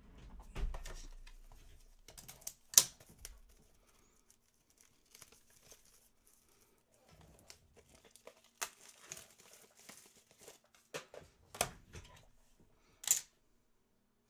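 Trading cards and plastic card sleeves being handled on a table: scattered light clicks, taps and crinkles, with a few sharper snaps, the loudest about three seconds in and near the end.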